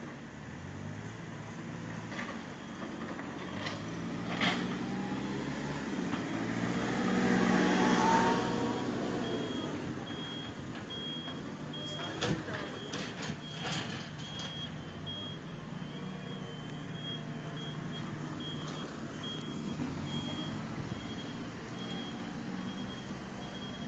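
Diesel engines of road-works machinery running, with a vehicle passing close and rising to the loudest point about eight seconds in, its pitch falling as it goes by. From about nine seconds in, a reversing alarm beeps at an even rate, and a few sharp knocks sound a little after twelve seconds.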